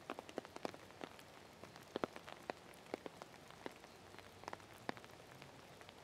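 Light rain falling: a faint steady hiss with irregular sharp ticks of single drops striking a nearby surface.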